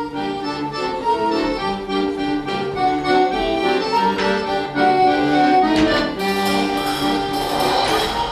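Instrumental music: a melody of held notes over chords.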